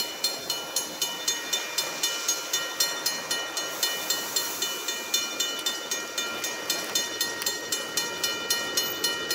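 Railway level-crossing warning bell ringing fast, about four metallic strikes a second, over the steady hiss of rain.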